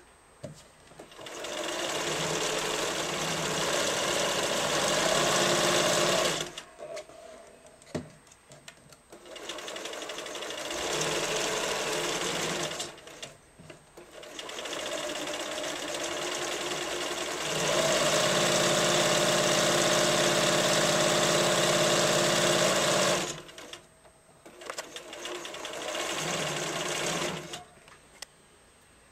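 Bernina 1090 (Riccar-badged) electronic sewing machine stitching in four runs separated by pauses, the longest and loudest run in the middle, with a few sharp clicks in the pauses.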